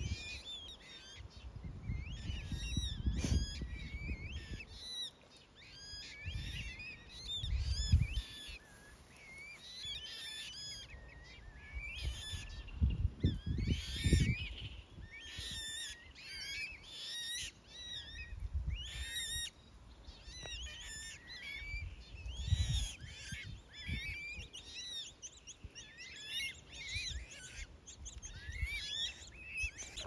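Mute swan cygnets peeping: many short, high chirps overlapping without a break. Intermittent low rumbles run underneath.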